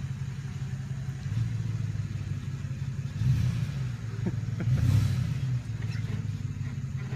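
A 4x4 pickup truck's engine running with a low, steady rumble, swelling twice in short revs, about three seconds in and again around five seconds, as the truck crawls up over a raised stone-paved curb.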